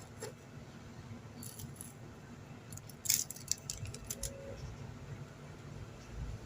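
Small metal parts and tools being handled: a few light clicks about a second and a half in, then a quick cluster of sharp clicks and rattles about three seconds in.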